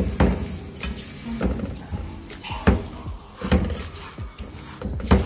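A silicone spatula scraping and knocking against a steel pot while stirring semolina frying in oil, with a knock or scrape about every second.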